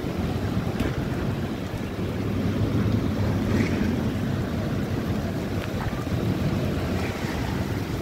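Heavy rain pouring in a storm, a steady noise with wind buffeting the phone's microphone.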